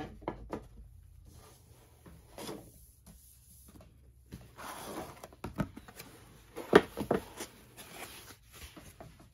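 A cardboard model box being opened by hand: scattered soft knocks and the scrape of the lid sliding off, then a foam insert rubbing against the cardboard, with the sharpest knocks about seven seconds in.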